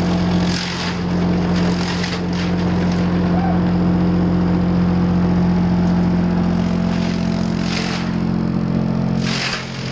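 Sawmill wood chipper running with a loud, steady hum, broken by a few short bursts of rushing noise.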